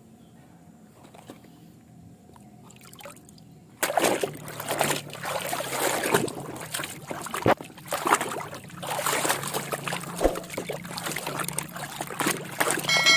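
Water splashing and sloshing as a toy is washed, starting suddenly about four seconds in after a quiet stretch and going on irregularly with many small splashes.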